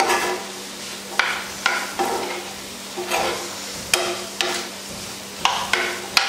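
A metal spoon stirring dry, spiced black chickpeas in a frying pan, scraping and clinking against the pan in about ten uneven strokes, over a faint steady sizzle.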